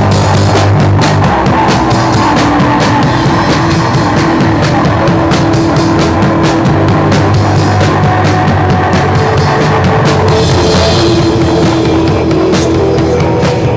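Rock band playing loudly: electric guitar run through a board of effects pedals, over a drum kit with frequent sharp drum and cymbal hits.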